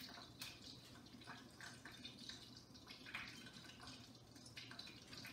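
Faint sizzling of breaded chicken frying in olive oil, with small irregular crackles and pops, over a steady low hum.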